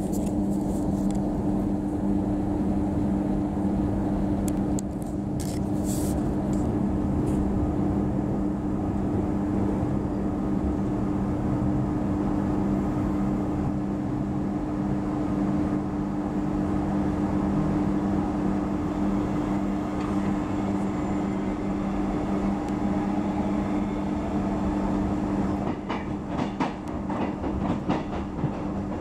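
Inside a Queensland Rail electric suburban train running along the track: a steady rumble of wheels on rail over a constant low hum. Short sharp clacks of the wheels over track joints come about five seconds in and again as a cluster near the end.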